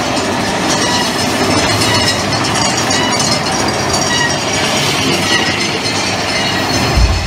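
Big Thunder Mountain Railroad mine-train roller coaster running on its track, a steady clatter and rattle of the cars. A deep rumble sets in near the end.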